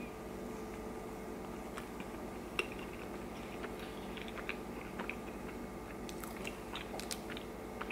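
A person chewing a mouthful of soft beef burrito, with small wet mouth clicks scattered through, a sharper one about two and a half seconds in and a cluster near the end, over a faint steady hum.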